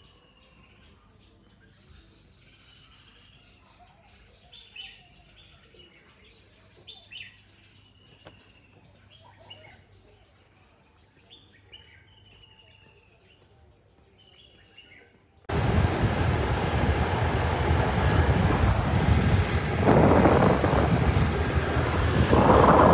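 Birds calling, short chirps and falling whistled notes, over a quiet garden background; about two-thirds of the way in this cuts off abruptly to loud, steady road noise from riding in a moving vehicle, swelling twice near the end.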